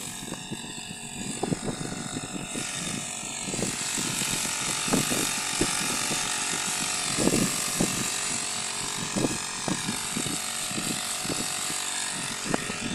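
Backpack power sprayer running steadily while it sprays a fine mist, a motor hum under a hiss that grows louder about two and a half seconds in. Irregular low thumps sound throughout.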